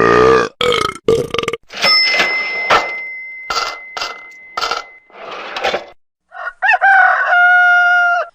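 A run of short sound-effect clips cut one after another: a burp at the start, a string of brief noises and clicks with a thin steady tone under them, and a long held pitched call near the end.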